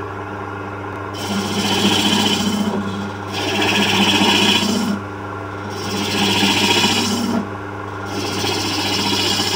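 Hook tool cutting into the inside of a spinning wooden workpiece on a lathe: four passes of rasping, shaving noise of about two seconds each, over the steady hum of the running lathe.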